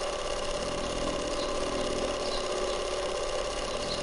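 Small electric motor of a miniature water pump running steadily: a constant hum with a few unchanging tones.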